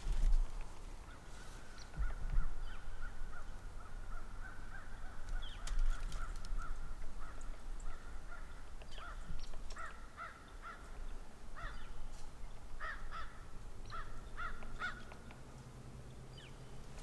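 Crows cawing: runs of repeated harsh caws that come in bunches through most of the stretch, with a couple of low thumps in the first few seconds.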